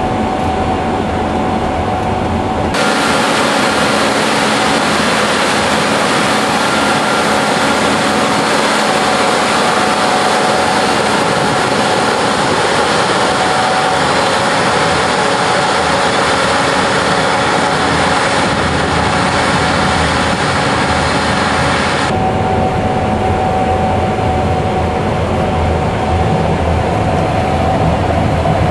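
Gleaner S77 combine harvester running steadily while cutting wheat: a continuous engine and threshing drone with a thin steady whine over it. About three seconds in the sound abruptly turns brighter and hissier, and about twenty-two seconds in it switches back.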